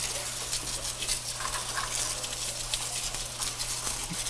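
Water jet from a hose spray nozzle hissing and pattering as it washes debris off a high-head effluent pump inside a plastic septic tank riser.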